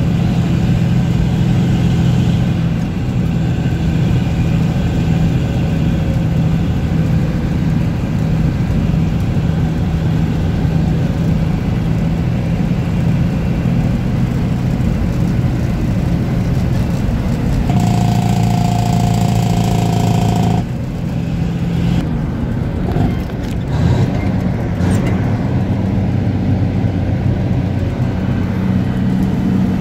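Diesel engine of a 1975 Dodge Bighorn tandem-axle tractor running steadily under way, heard from inside the cab. About two-thirds of the way through, a louder, higher-pitched sound lasts about three seconds and cuts off suddenly.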